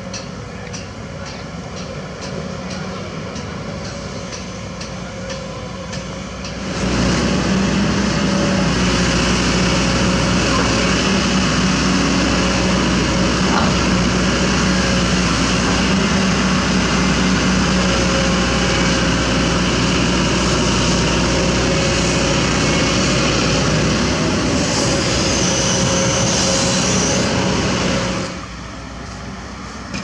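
Takeuchi TB105C mini excavator's diesel engine running loud and steady at close range. Before it starts there are about seven seconds of quieter, more distant excavator engine noise with a regular fast ticking. The close engine sound cuts off abruptly near the end.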